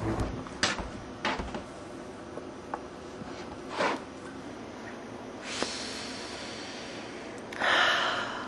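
A few soft knocks and footsteps, then a short, loud sniff through the nose near the end.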